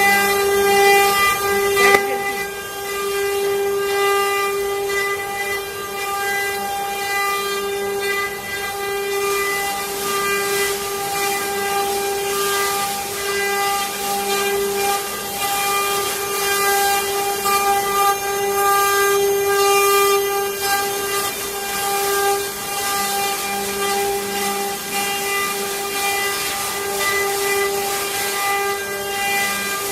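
CNC wood-carving router's spindle running at a steady, high whine, with a hiss of cutting noise.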